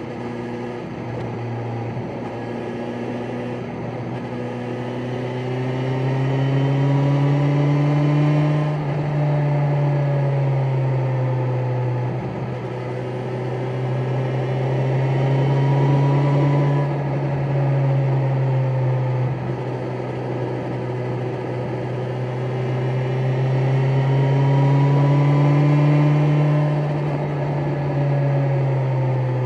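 BMW S1000XR's inline-four engine pulling at low revs in sixth gear. Its pitch climbs slowly three times, each climb followed by a drop as the throttle eases: the first drop about a third of the way in, the second just past halfway, the last near the end.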